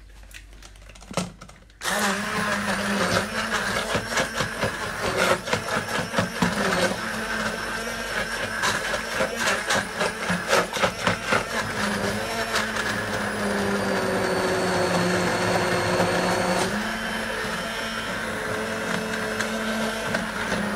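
Handheld stick blender switched on about two seconds in, its motor running steadily as it purées broccoli and blue cheese soup in a stainless steel pot. Many sharp clicks sound over the first ten seconds or so.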